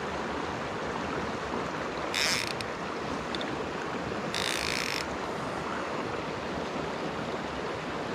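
Small creek flowing steadily, with two short ratcheting buzzes of a fly reel's click drag as line is pulled off it, about two seconds in and again around four and a half seconds in.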